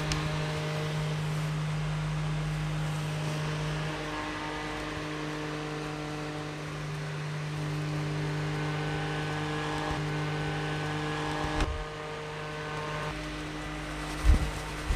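Small battery-powered clip fans running: a steady motor hum with rushing air, its tone shifting slightly a few times. A sharp click comes near the end, followed by low rumbling buffets of air.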